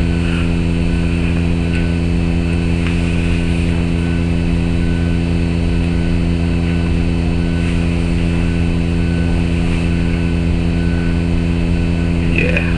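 Steady low electrical hum, an even stack of droning tones with no change in level. A faint short high note repeats about once a second over it.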